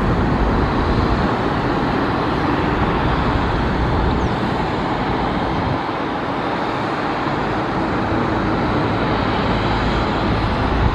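Boeing 767-300F freighter's jet engines running at idle during pushback: a steady, loud rushing noise with a faint high whine.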